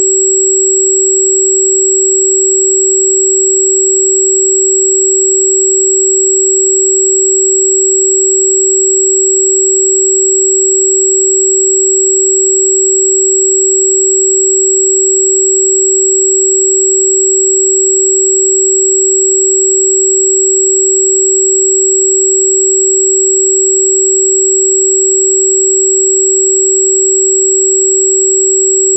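Continuous pure sine tone at about 382.6 Hz, held at one pitch and one level: the 'healing frequency' given for Di Gu Pi (wolfberry root bark). A much weaker, very high thin tone runs alongside it.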